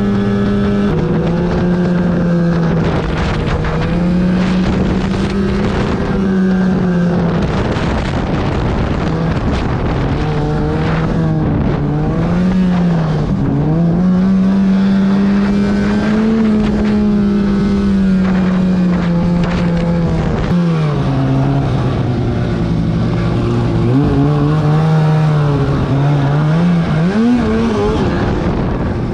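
2008 Arctic Cat F1000 Sno Pro snowmobile's two-stroke twin engine running under way. Its pitch rises and falls repeatedly with the throttle, dipping lowest a little past two-thirds of the way through.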